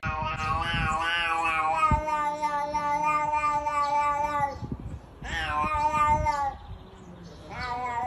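Domestic cat yowling in a standoff with another cat: a long wavering warning yowl of about four and a half seconds, a shorter one after a brief pause, and a third starting near the end.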